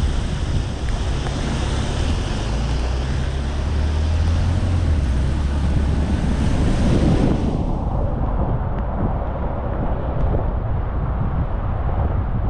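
Car driving on a rain-wet road: a steady hiss of road and tyre noise over a low rumble of wind buffeting the microphone. About two thirds of the way through, the upper part of the hiss drops away suddenly.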